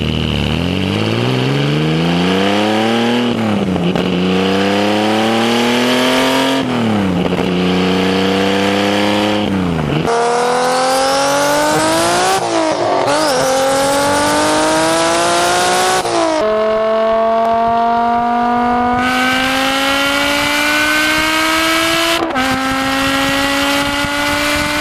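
Car engine accelerating hard up through the gears. Its pitch climbs steadily and drops sharply at each upshift, about five times, and the climbs grow slower in the higher gears.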